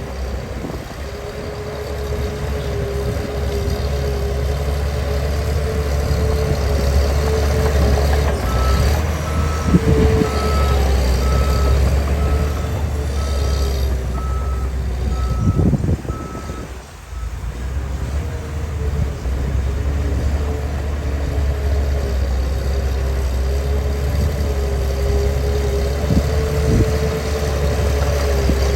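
Caterpillar 816D heavy diesel engine running hard as it levels dirt, with a deep, steady rumble. A reversing alarm beeps steadily for several seconds in the middle, and the engine note dips briefly just past halfway.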